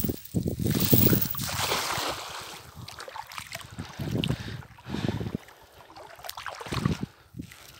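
Water splashing and sloshing at the edge of a pond, loudest in the first couple of seconds, with wind buffeting the microphone in irregular gusts.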